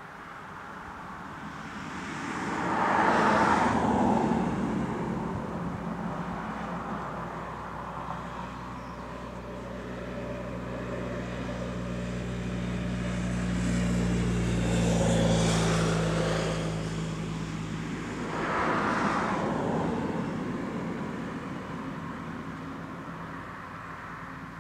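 Vehicles passing one after another on the road, each swelling in and fading out. The first passes about three seconds in. A second, with a steady engine hum that builds for several seconds, passes around the middle, and a third follows a few seconds later.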